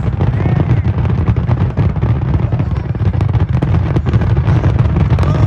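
Fireworks barrage: a dense, unbroken stream of rapid booming and crackling explosions over a heavy low rumble.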